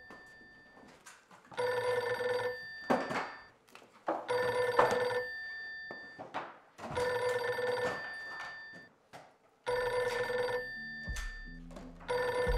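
Telephone bell ringing in rings of about a second each, repeating roughly every three seconds: four full rings and the start of a fifth near the end.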